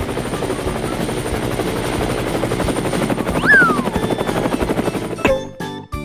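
Helicopter sound effect: a steady, rapid rotor chopping. A short whistling swoop rises and falls about halfway through. The chopping cuts off near the end, where music comes back in.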